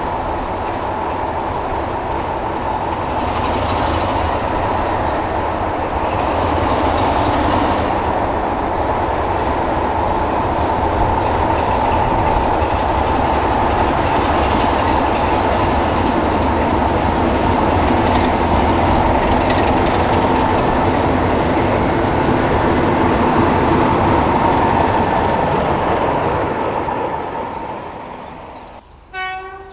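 Class 33 diesel locomotive 33063, with its Sulzer eight-cylinder engine, working past with the rumble of its wheels on the rails and a steady engine tone. It grows louder, holds, then fades away near the end, where a brief high pitched sound follows.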